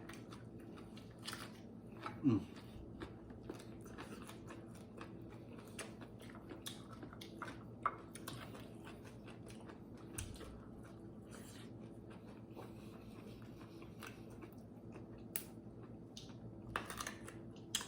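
People chewing and crunching food close to the microphone, with many small scattered clicks and taps.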